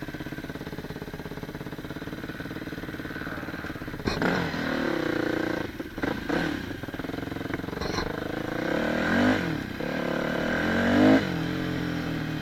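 Dirt bike engine heard close up from the bike itself. It idles steadily, then about four seconds in it pulls away louder, with the revs rising and falling several times. The loudest rev comes near the end.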